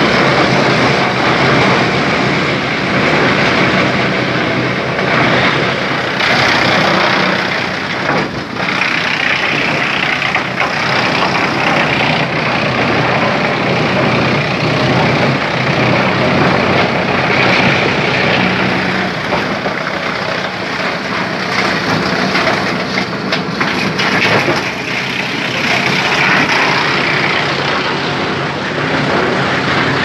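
A 75 kW electric drum wood chipper and its chip conveyor running: a loud, continuous machinery noise that swells and dips as wood goes through.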